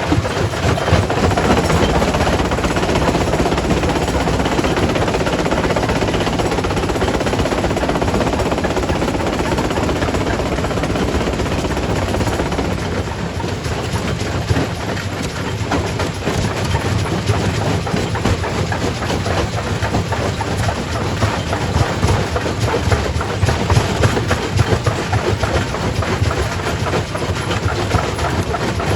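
Primary rock crusher running under load: a continuous heavy rumble with rock clattering and knocking as stone is broken. About halfway through, the grinding noise thins and the low rumble comes forward.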